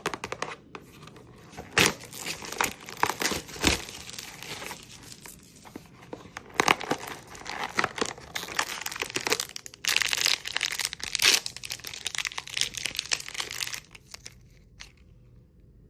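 Blind-box toy packaging being torn open and crinkled by hand, a dense run of tearing and crackling with sharp clicks, stopping near the end.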